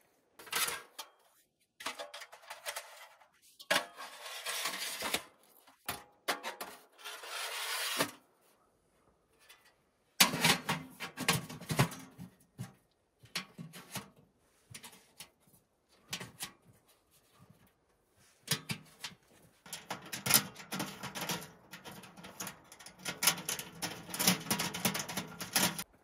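Metal parts of a portable folding tent wood stove being handled and fitted together: irregular clanks, scrapes and rubbing in scattered bursts with short quiet gaps, busier in the last few seconds.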